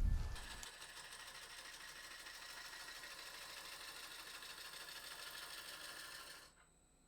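Laguna 18|36 wood lathe (1.5 hp, 110 V) running: a loud low thump as it starts up, then a steady mechanical hum with a thin high whine that cuts off suddenly near the end.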